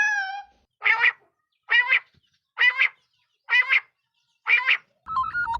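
A bird calling: the tail of a long drawn-out call, then five short calls about a second apart. Another sound starts just before the end.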